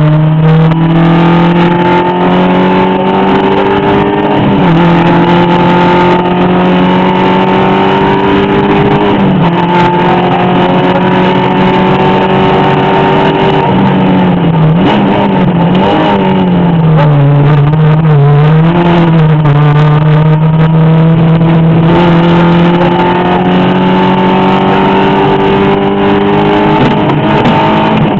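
Rally car engine running hard under load: its pitch climbs steadily and drops sharply at each gear change, several times over. About a third of the way through, the pitch wavers up and down for a few seconds before it settles into long steady pulls again.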